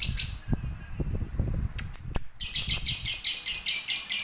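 Lovebird singing a long, fast, high-pitched chattering trill that breaks off about half a second in. Low thumps and a few sharp clicks follow, and the rapid chatter starts again about two and a half seconds in.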